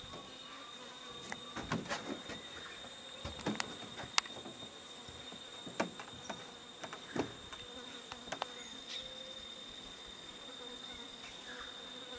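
Insects buzzing in a steady high drone, with a short high chirp repeating every second or two. Scattered sharp clicks and knocks come through, the loudest about four seconds in.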